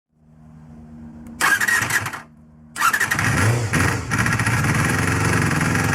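Honda MC23 Jade's 250 cc inline-four (MC14E) being started after a rebuild meant to cure an abnormal engine noise. After a faint hum, it fires loudly for about a second and drops away. Just before the halfway point it catches, revs up briefly, then keeps running steadily.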